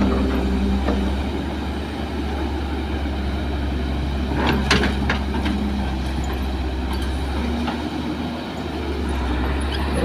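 Kobelco SK200 hydraulic excavator's diesel engine running steadily while it digs soil. A few sharp knocks come about halfway through.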